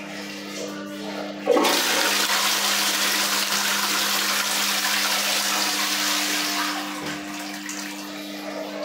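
Wall-hung toilet with a concealed cistern flushed from its dual-flush wall plate: a sudden rush of water about a second and a half in, running loud and even for about five seconds, then tapering off as the bowl settles, over a steady low hum.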